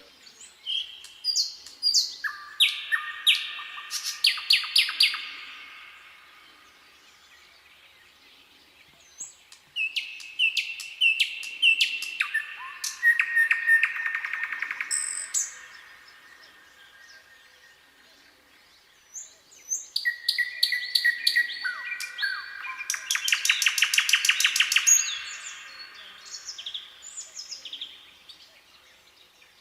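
Nightingale singing: three phrases of fast repeated notes and short whistles, each lasting several seconds, with pauses of a few seconds between them.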